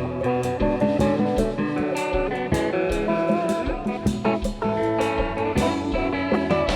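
Haitian kompa band playing, with guitar lines over a steady beat.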